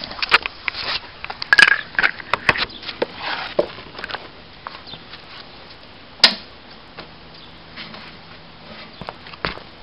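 Handling noise as a camera is moved and set down on the ground: scattered knocks, rustles and clicks, then one sharp click about six seconds in. A faint steady hum follows in the last few seconds.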